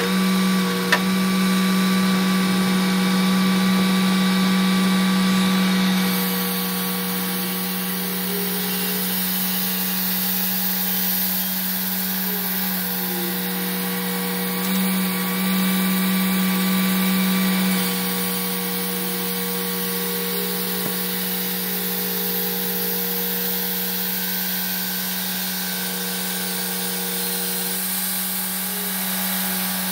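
Clarke 350 XP portable bandsaw mill running steadily: its engine and band blade make a strong, even hum as the sawhead travels along the log. The sound drops a little about 6 s in and is briefly louder again between about 15 and 18 s.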